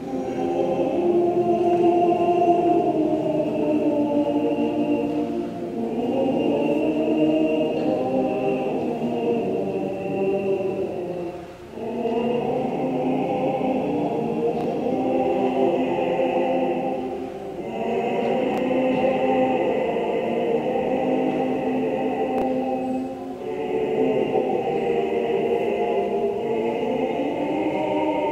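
Opera chorus singing in long sustained phrases of about six seconds each, with brief breaks between them.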